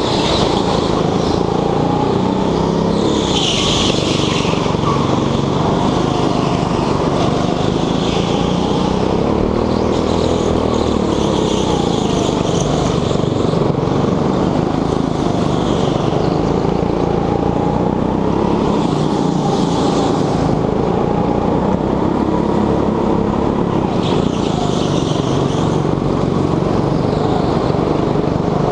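Petrol go-kart engine running under hard driving, its pitch rising and falling with the throttle through the corners. Several bursts of tyre squeal come through the turns.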